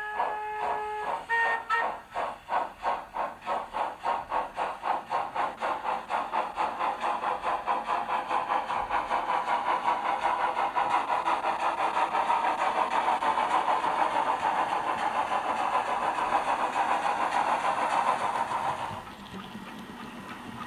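Model steam locomotive sound from an ESU LokSound V5 decoder with a LeoSoundLab BR 50 sound project, played through large speakers. A chime whistle ends about a second in, followed by a short second toot. Then the exhaust starts chuffing slowly and speeds up to fast, steady chuffing, which stops near the end, leaving a quieter steady hiss.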